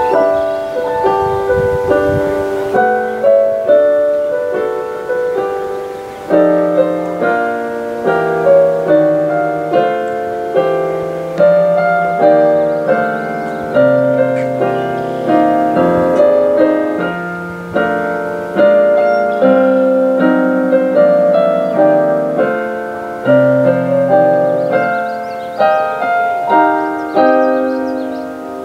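Solo piano music: chords and a melody, each note struck and left to fade.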